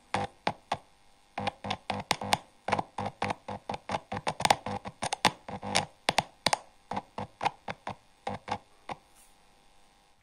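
Irregular series of short, sharp taps and clicks, a few a second, on a homemade electret microphone circuit as it is tested and shown to work. The clicks stop near the end.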